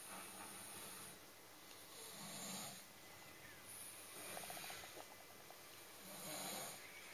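A sleeping basset hound snoring softly, about four breaths roughly two seconds apart, one of them with a fluttering rattle about midway.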